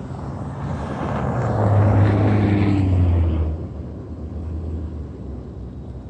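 A motor vehicle passing close by on the street: its engine hum and road noise build up, peak about two to three seconds in, and drop away at about three and a half seconds.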